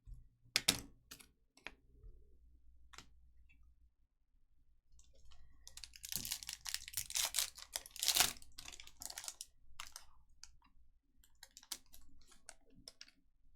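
Thick chromium trading cards being handled and flipped through: scattered sharp clicks of card stock, with a dense stretch of rapid clicking and rustling from about six to nine seconds in.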